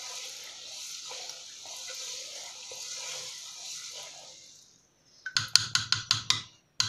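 Wooden spoon stirring lentils simmering in tomato broth in a metal pot, with a steady soft hiss of bubbling liquid. About five seconds in, a quick run of sharp taps as the spoon knocks against the pot.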